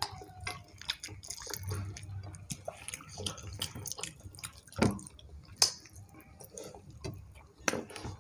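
People eating soft rice-and-lentil khichuri with a spoon and bare fingers: wet mouth and chewing sounds with scattered small clicks of spoon and fingers against the plates. The sharpest clicks come about five seconds in.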